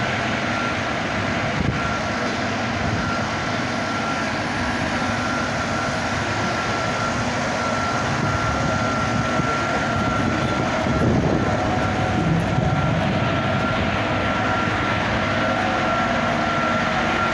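New silage-processing machine running steadily, a loud mechanical drone with a constant high-pitched whine over it, on one of its first trial runs.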